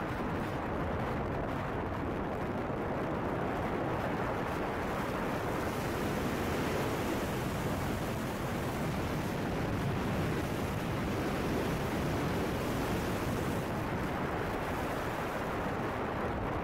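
Steady rushing wind and tyre noise of a moving car, with a low rumble and no distinct events.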